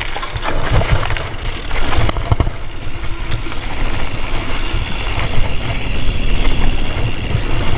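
Thrill Ravage 4.0 hardtail mountain bike riding down a dry dirt trail: tyres rolling over loose dirt, with the bike knocking and rattling over bumps. Wind rushes steadily over the camera's microphone throughout.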